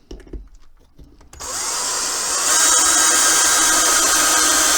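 Power drill driving a 5x80 mm screw into wood. The motor spins up with a short rising whine about a second and a half in, then runs steadily under load and gets louder partway through. Faint handling clicks come before it.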